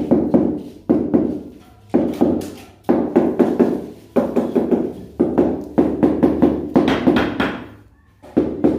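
A rubber mallet tapping a large glossy floor tile down into its bed of wet cement mortar. It goes in bursts of several quick dull knocks about once a second, with a short pause near the end.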